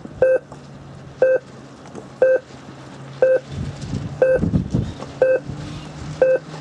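Electronic regatta timer giving short, evenly spaced beeps exactly once a second, as in a race countdown, over a steady low hum.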